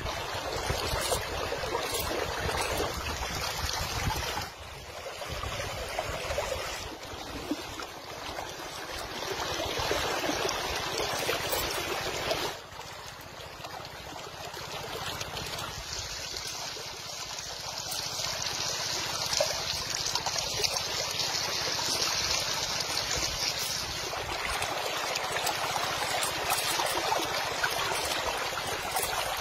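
Shallow river water running and trickling over rocks at the water's edge, a steady rushing that drops off abruptly twice, about four and a half and twelve and a half seconds in, then builds again.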